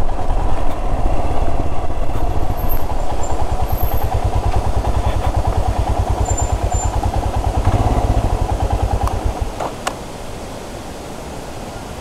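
Motorcycle engine running at low speed with an even low pulsing, then switched off about nine and a half seconds in. After it stops, a steady rushing noise is left: a waterfall further down the slope.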